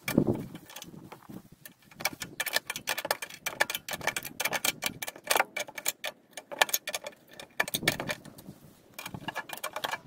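Hand ratchet clicking in quick runs of strokes while driving the shroud screws into a Briggs and Stratton lawnmower engine, with brief pauses between runs.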